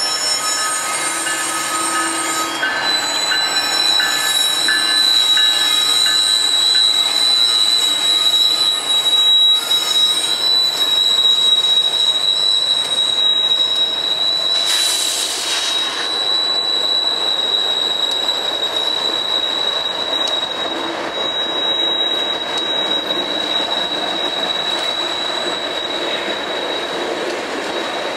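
Freight train passing: the BNSF diesel locomotives go by first, then hopper cars roll past with steady wheel and rail noise. From about three seconds in, a thin high-pitched wheel squeal holds steady over the rolling noise.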